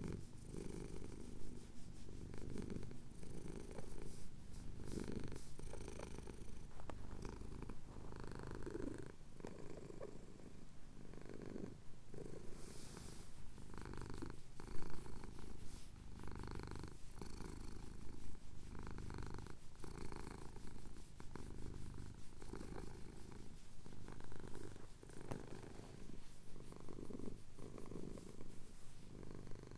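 Domestic cat purring close to the microphone as its chin is scratched, a low steady purr that swells and eases in a rhythm of about one pulse every second or so.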